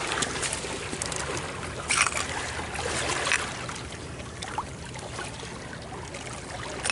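Water trickling and lapping among wet stones at the shoreline. A few sharp crunches or knocks of stone and shingle come through it, the loudest about two seconds in.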